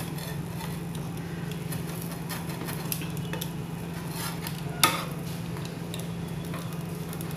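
Pizza cutter rolling and scraping across a pizza on a nonstick pan, metal tapping the pan, with one sharp click about five seconds in. A steady low hum runs underneath.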